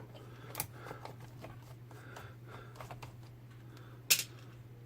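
Small clicks and taps of a screwdriver and plastic and metal parts being worked during disassembly, with a sharper click about four seconds in.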